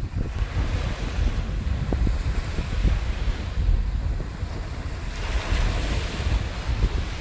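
Wind buffeting the microphone over small waves breaking on a beach. About five seconds in, the hiss of a wave breaking and washing up the shore grows louder.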